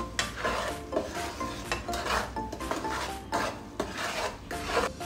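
Black plastic spatula scraping and stirring across a nonstick frying pan of bubbling sugar syrup, in repeated strokes.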